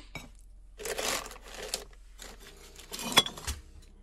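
Old glass jars and bottles being handled in a concrete bin: scraping and rustling of glass against the paper wrapping, then a sharp glass clink a little after three seconds in.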